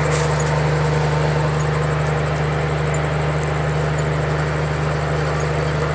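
An engine idling steadily: a low, even hum that does not change, with hiss over it.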